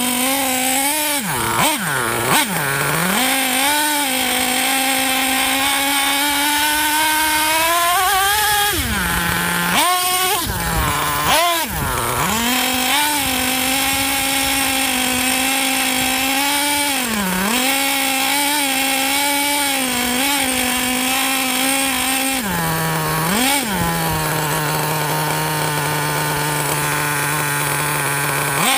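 Small two-stroke engine of a radio-controlled monster truck, heard from a camera mounted on the truck. It buzzes at high revs with several quick throttle drops and climbs, then settles back to idle for the last few seconds.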